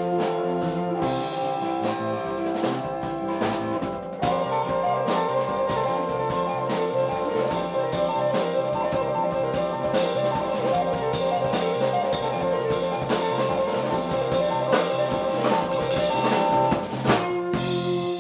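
A small pop-folk band playing an instrumental passage: drum kit keeping a steady beat under electric guitar, with a held, horn-like melody line coming in about four seconds in.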